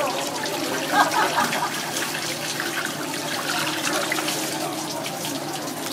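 Running water splashing over hands and a flying fish as it is rinsed and cleaned on a wet cutting board.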